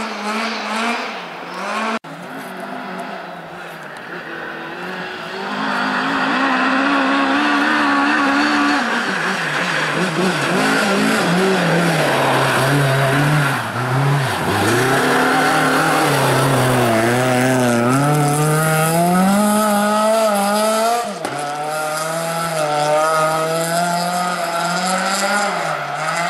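Rally car engines revving hard as the cars pass one after another, the pitch repeatedly climbing and dropping. The sound breaks off abruptly twice where one pass cuts to the next.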